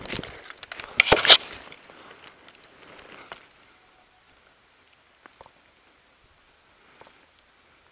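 Footsteps and rustling of a player moving over brushy ground, with one loud burst of rustling about a second in; the rustling dies down after about three seconds, leaving quiet with a few faint clicks.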